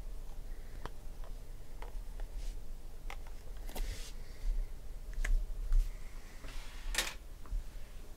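Hands handling shrink-wrapped trading-card boxes and a marker on a tabletop: scattered light taps and clicks with a brief rustle, and one sharper click about seven seconds in.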